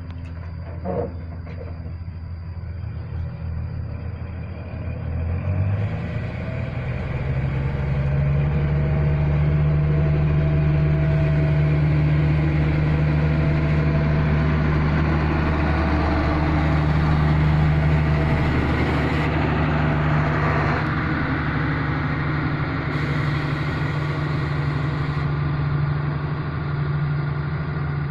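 Heavy diesel engine of road-paving machinery, revving up over the first several seconds and then running loud and steady, easing off near the end.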